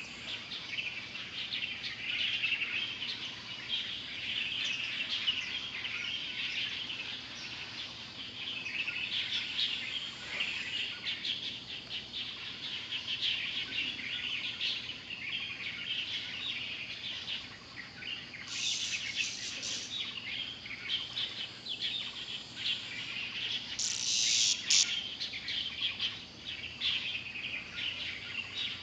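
Birds chirping and twittering busily, with two louder, higher bursts of about a second each roughly two-thirds of the way through.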